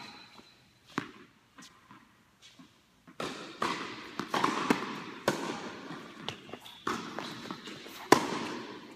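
Tennis balls struck by racquets and bouncing on an indoor hard court, each hit echoing in the large hall. There is a single hit about a second in, then a rally of quick hits and bounces from about three seconds in, with the loudest hit near the end.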